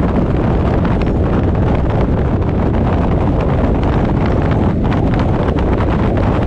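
Steady wind buffeting on a car-mounted action camera's microphone while the car drives, mixed with the rumble of the car and its tyres on the road.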